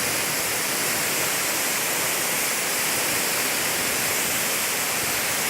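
Large waterfall crashing down: a steady, even rush of falling water.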